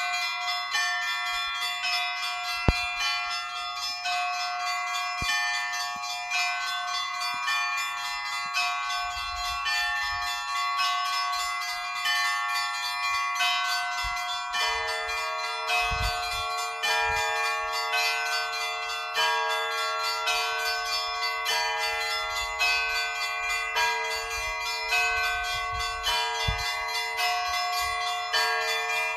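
Church bells ringing in a continuous peal, several higher bells struck in quick succession over and over. A lower-pitched bell joins the pattern about halfway through.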